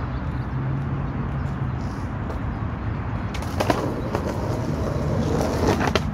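Skateboard rolling toward the camera over rough asphalt from about three seconds in, the rumble of its wheels growing louder, with a sharp clack of the board and more clacks near the end as it hits the curb for the trick.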